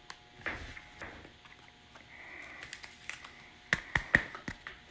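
A trading card being handled and slid into a clear plastic sleeve: soft plastic rustling and scraping, then three sharp clicks a little under four seconds in.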